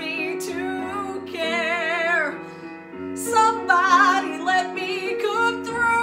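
A woman singing a musical-theatre ballad with wide vibrato over a sustained instrumental accompaniment. There is a long held note that bends down at its end, a brief dip, then more sung phrases from about three seconds in.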